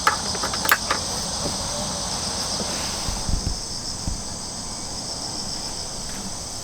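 Insects chirping in a steady high-pitched chorus, with two sharp clicks near the start and a few low thumps about three and four seconds in.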